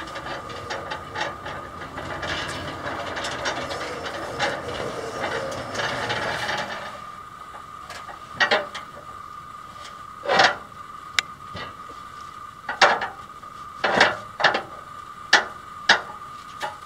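A homemade solar-powered sawmill's blade rasps through a wooden log for about seven seconds, then stops. It is followed by a series of sharp wooden knocks and clatters as the cut wood is handled, over a steady high whine.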